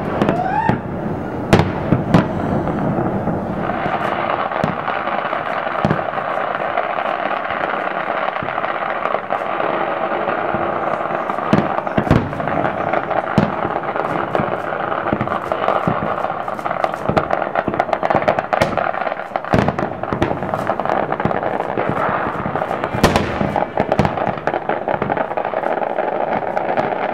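Aerial firework shells bursting in an irregular string of sharp bangs. From about four seconds in, a dense steady hiss runs under the bangs.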